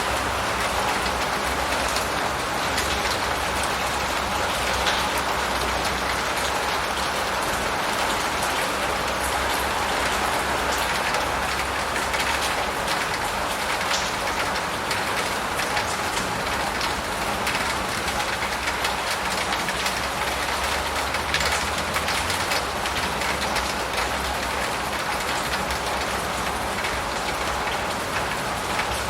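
Steady rain falling, a dense hiss with many small drop patters, over a steady low rumble.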